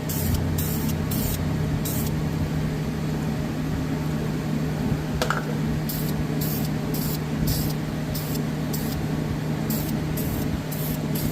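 An aerosol spray can fired in short hissing bursts: a quick run of four, a pause with a single click, then about ten more in quick succession. A fan hums steadily underneath.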